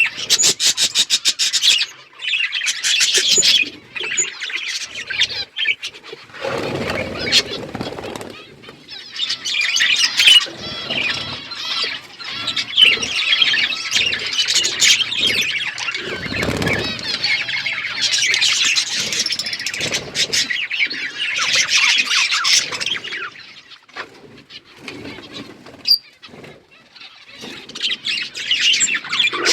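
A flock of budgerigars chattering and chirping continuously in many overlapping high voices, with brief lower rustling bursts about seven seconds in and again just past the middle.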